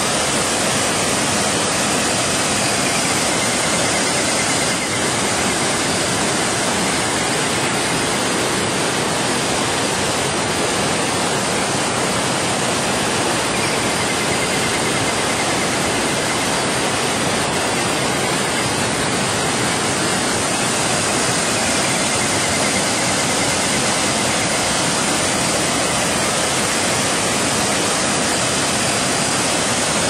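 Waterfall cascading over rock ledges and boulders into a pool: a steady, unbroken rush of falling white water.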